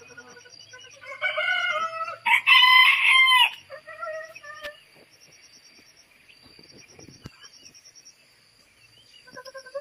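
A rooster crows once, a drawn-out cock-a-doodle-doo that is loudest in its final long note and falls at the end. A few short poultry calls follow, one soon after and another near the end.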